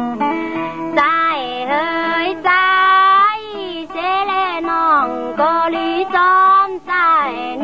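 Tai Lue khap courtship song: a high female voice singing long, sliding, wavering phrases with short breaks between them. A plucked-string accompaniment plays steady notes for about the first second, before the voice comes in.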